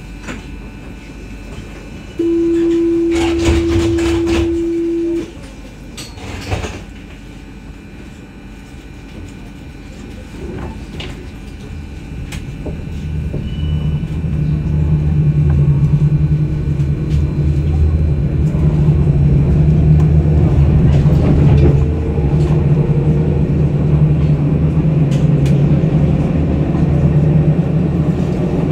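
Tram at a stop sounds a loud steady warning tone for about three seconds, with a couple of clunks, before departing. From about halfway in, the tram pulls away and its traction motor hum and rail rumble build up and grow louder as it gathers speed.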